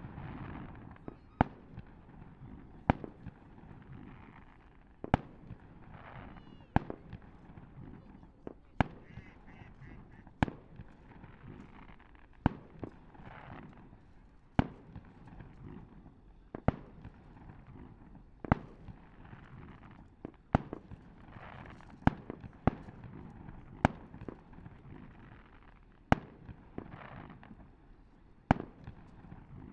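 Fireworks shells bursting overhead: single sharp bangs about every one and a half to two seconds, with murmuring crowd voices between them.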